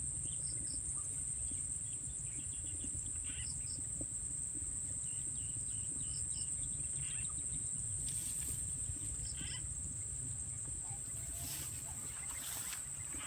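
Insects in a rice field droning steadily at a high pitch, with faint short double chirps every couple of seconds and a few brief rustles in the second half.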